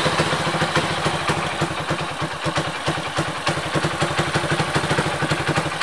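Bored-up Honda Supra X 100 single-cylinder four-stroke engine, fitted with an oversize 52 mm Vario piston and high compression, idling with a fast, even chopping beat of firing pulses, the sound its owner likens to a helicopter.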